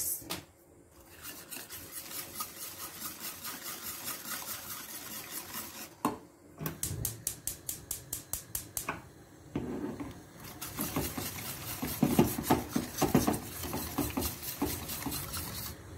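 Wire whisk beating a milk, flour and sugar mixture in a stainless steel pot, its wires scraping and rattling against the pan in quick rhythmic strokes, with short pauses about six and nine seconds in.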